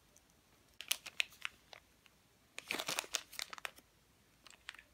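Small clear plastic zip-lock bag crinkling as it is handled, in two bouts of quick, sharp crackles with a few more near the end.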